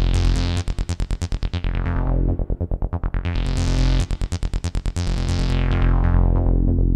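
Background electronic music: a synthesizer playing fast repeated notes over a held bass.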